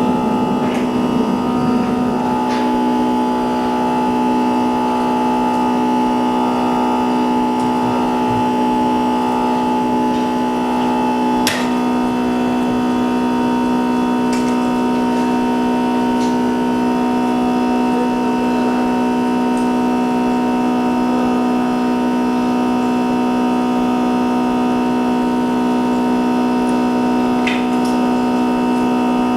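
Steady hum of an LCD/OLED screen separator machine running, several held tones with no change in pitch, with a few light clicks from the work at the screen, the sharpest about 12 s in.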